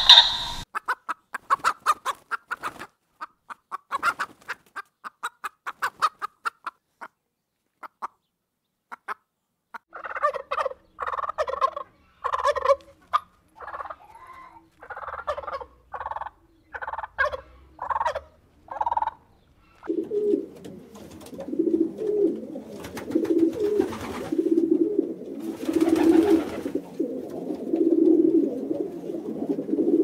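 Animal calls in three stretches. First come quick high clicks for about nine seconds. Then a run of calls about one a second, and from about twenty seconds in a lower pulsing call that carries on to the end.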